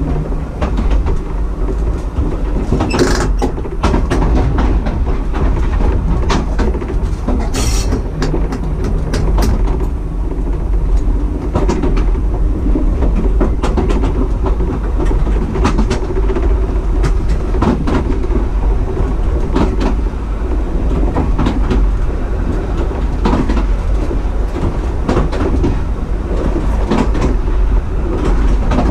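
W7-class electric tram running along the track: a steady rumble from the wheels and running gear, with frequent sharp clicks and clatter as the wheels pass over the rails, two of them sharper about three and eight seconds in.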